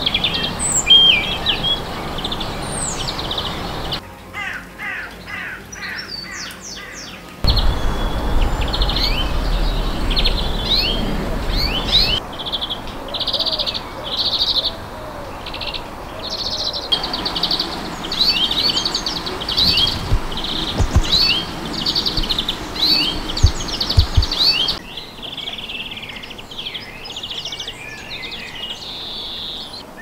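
Greenfinches singing: repeated bright twittering trills and chirps, in several short passages that change abruptly. A low rumble lies under some passages.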